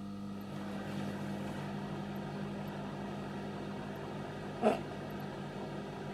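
Domestic microwave oven running a 20-second heat: a steady low hum. One short sharp sound about four and a half seconds in.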